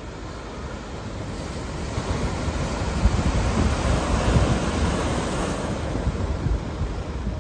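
Ocean surf breaking and washing up a pebble and boulder shore as an even rush of noise, swelling louder about two to four seconds in as a wave comes in, with wind rumbling on the microphone.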